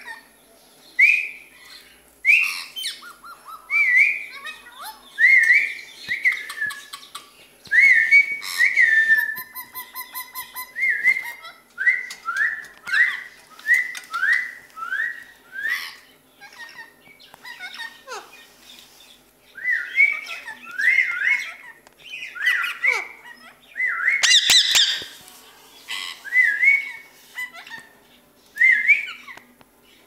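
Parakeets whistling: a long run of short upward-sliding whistles, roughly one a second, with one louder harsh screech about 24 seconds in.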